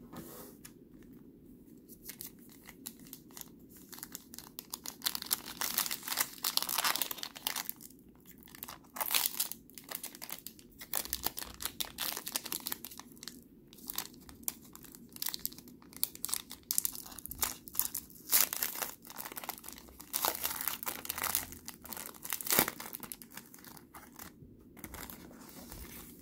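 Foil trading-card pack wrappers crinkling in the hands and being torn open, in irregular bursts of crackling that begin about two seconds in.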